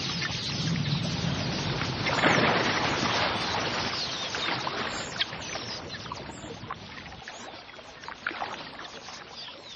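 Water splashing and churning as a crocodile lunges through a shallow pool among a flock of quelea, loudest about two seconds in and then dying away, with faint bird chirps over it.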